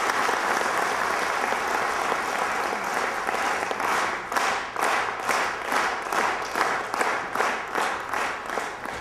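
Audience applauding at the end of a speech: dense applause that settles about four seconds in into rhythmic clapping in unison, a little over two claps a second, growing fainter near the end.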